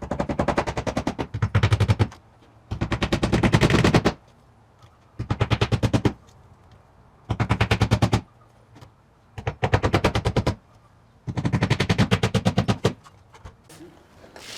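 A power tool hammering in rapid runs of sharp impacts, about a dozen a second. It sounds six times, each run lasting one to two seconds, with short pauses between them.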